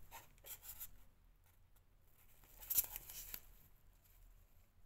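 Faint rustling and light handling noises of fabric flowers being moved about on a tiara, with a sharper brief rustle a little under three seconds in.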